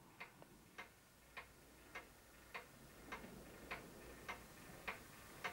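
Faint, even ticking, a little under two ticks a second, from a turntable driven by a microwave-oven turntable motor as it turns.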